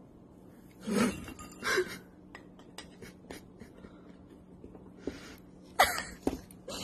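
A few light clicks and taps from a conure's beak working at a wet tea bag in a ceramic mug, with a few short breathy sounds about a second in, again just after, and near the end.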